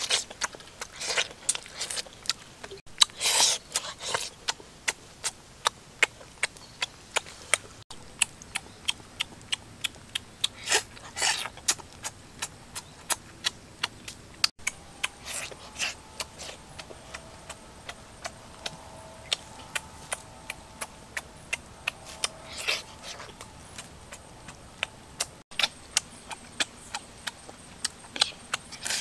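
Close-up eating sounds: lip-smacking and chewing, a sharp smack about three times a second, with a few longer, louder noisy bursts.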